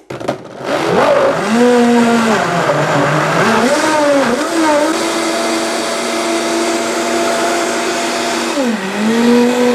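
Vitamix 5200 power blender motor starting up and running on large chunks of raw pumpkin. Its pitch climbs, sags and recovers about three seconds in, holds steady, then dips and rises again near the end as the pumpkin turns smooth.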